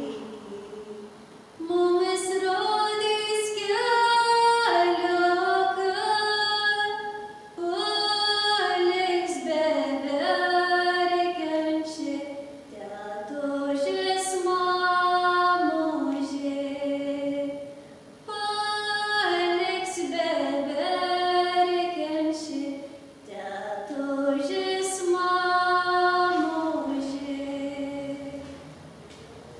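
A woman singing a Lithuanian folk song solo and unaccompanied, in phrases parted by short breaths; the song ends near the end.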